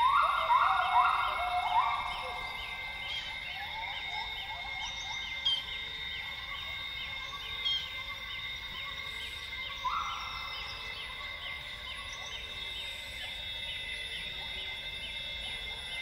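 Northern Grey Gibbons singing: a run of loud rising whoops in the first two seconds, trailing off into shorter notes, then one more whoop about ten seconds in. Behind them is a steady high-pitched rainforest chorus with a short chirp repeating two to three times a second.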